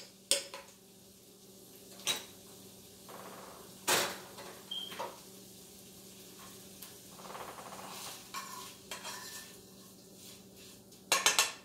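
A metal fork clinking and scraping in a pan, with cookware being handled: scattered sharp knocks and clinks, and a quick rattling run of clicks near the end.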